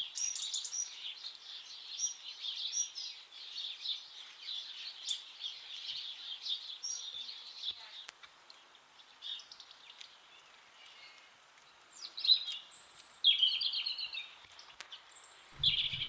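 Background birdsong: high chirps and twittering of songbirds, dense at first, thinning out about halfway through, then a few brief phrases near the end.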